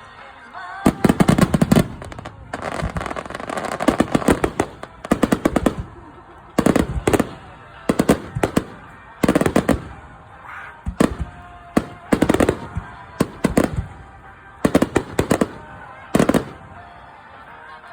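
Fireworks bursting in rapid crackling volleys, each a cluster of many sharp bangs, coming every second or two and stopping near the end. Music plays faintly underneath.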